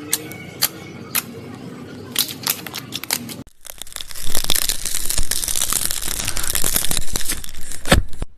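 Slime being squeezed and pressed, making popping and crackling sounds: a few sharp clicks at first, then dense loud crackling from about halfway through that cuts off near the end.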